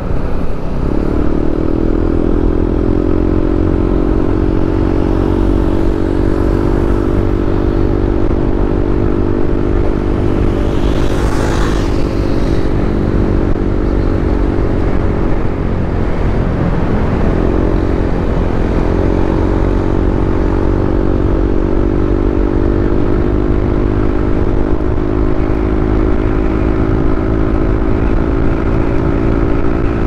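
Motorcycle engine running at a steady cruise over a steady low rumble. The engine note dips and climbs again about halfway through, and there is a brief hiss about a third of the way in.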